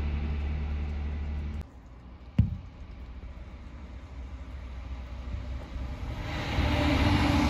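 Low engine rumble of a heavy truck that cuts off suddenly, then a single sharp click. Near the end, the hiss of tyres on wet pavement and engine rumble swell up as another coal truck approaches.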